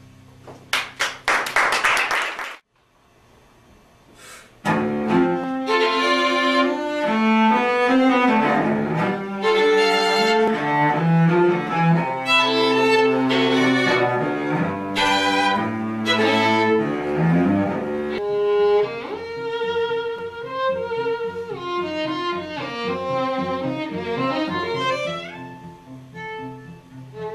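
A chamber trio of bowed strings, cello and violin, playing classical music. A loud opening passage stops abruptly a little over two seconds in, and after a short pause the playing resumes with quick moving notes that grow quieter near the end.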